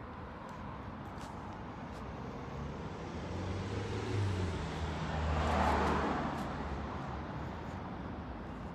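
A car passing on the road, its engine hum and tyre noise swelling to a peak about five and a half seconds in, then fading away.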